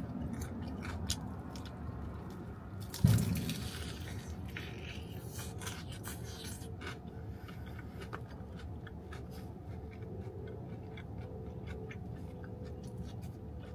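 Eating crispy fried chicken close to the microphone: a loud crunching bite about three seconds in, then chewing with many small clicks and scrapes against a foam takeout box, over a steady low hum.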